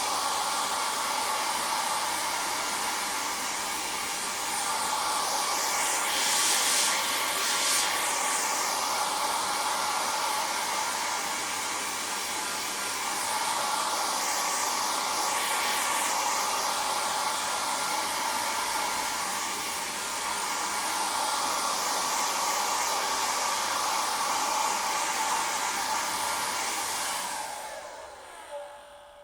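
Hair dryer running: a steady rush of air over the whine of its fan motor, the hiss swelling brighter a few times. Near the end it is switched off and winds down with a short falling whine.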